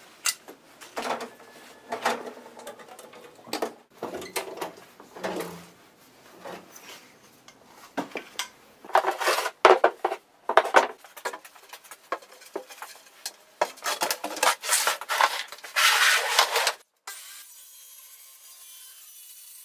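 Metal shock-absorber parts handled and set down on a wooden workbench: irregular knocks, clinks and scraping. About seventeen seconds in it gives way to a faint steady hum with a thin whine.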